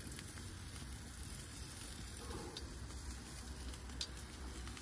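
Bacon-wrapped duck breast sizzling and faintly crackling on the grates of a gas grill over open flame, with a small tick about four seconds in.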